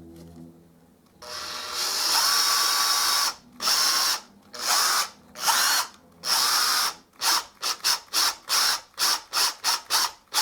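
Power drill bit cutting into the head of a blind (pop) rivet to free it. It starts with a steady run of about two seconds, then the trigger is pulsed in shorter and shorter bursts, about two a second near the end.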